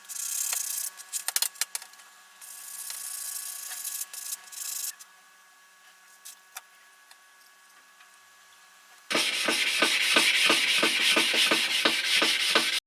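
Hand sanding: scattered scratchy strokes at first, a quieter spell, then a loud, even back-and-forth scrubbing at about three to four strokes a second that cuts off suddenly near the end.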